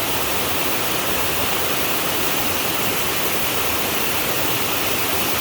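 Waterfall: water cascading and splashing in a steady, loud rush.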